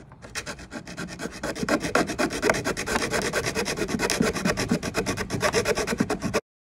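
A bare hacksaw blade, held in the hand, sawing through a plastic pivot arm with rapid, even back-and-forth strokes. The strokes build up over the first second or two and cut off suddenly near the end.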